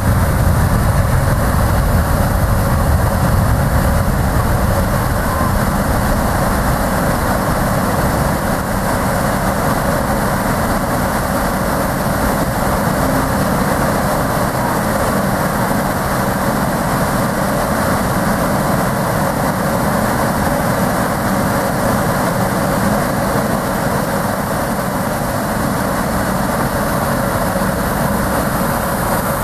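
Boeing 737-800's CFM56-7B turbofan engines at takeoff thrust during the takeoff roll: a loud, steady jet rush that eases slightly over the first several seconds as the airliner moves away down the runway.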